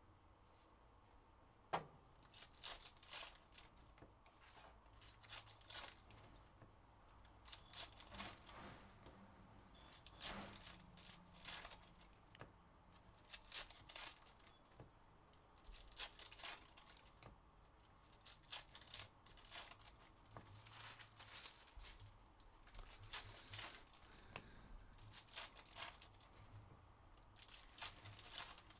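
Foil wrappers of Panini Contenders football card packs being torn open and crinkled by hand, in faint short rustles every second or two, with one sharp click about two seconds in.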